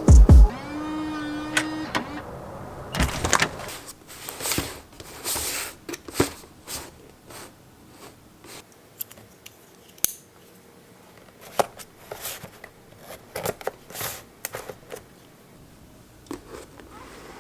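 Irregular clicks, taps and brief rustles of small objects being handled, scattered throughout with short gaps between them.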